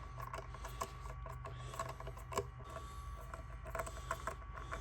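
Screwdriver driving wood screws into a guitar's mahogany body: a run of small, irregular clicks and ticks over a steady low hum.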